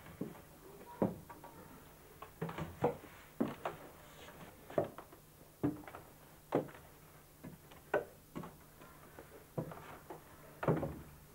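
Slow footsteps on the treads of a wooden staircase: irregular knocks and thuds about one a second as someone climbs.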